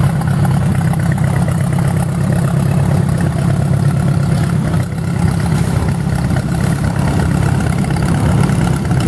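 Antique motorcycle engine idling with a steady low, fast-pulsing rumble that dips briefly about five seconds in.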